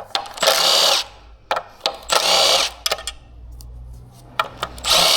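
Cordless power driver spinning out the T30 Torx bolts of an Audi EA839 engine's upper sump in three short bursts, with light clicks of handling between them.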